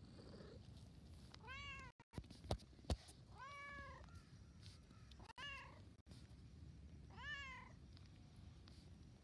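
A cat meowing four times, spaced about two seconds apart, each meow short and rising then falling in pitch: the calls of a cat wanting attention. Two sharp clicks, the loudest sounds, come between the first and second meows.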